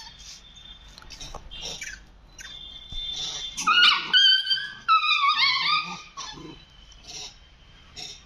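Rhesus macaques screaming: a run of high, wavering calls that fall in pitch, loudest for about two seconds in the middle.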